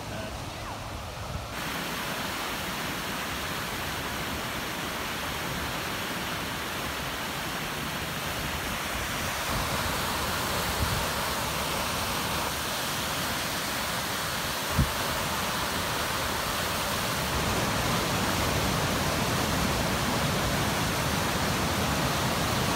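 Flash-flooded river rushing and churning in a steady, full roar of water, growing louder in steps about ten and eighteen seconds in. A single sharp knock sounds about fifteen seconds in.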